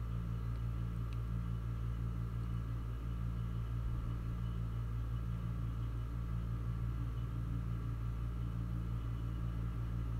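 A steady low hum that holds unchanged throughout.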